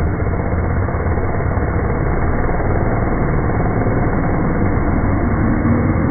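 Chainsaw running steadily at close range as it cuts through apples held in a man's mouth.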